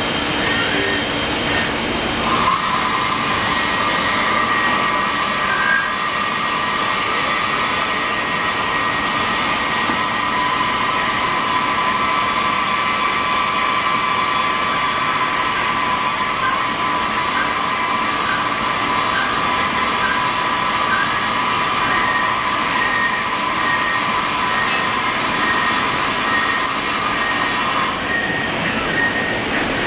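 Citizen Cincom M20 CNC automatic lathe running, a steady mechanical hiss with a steady whine that starts about two seconds in and stops near the end.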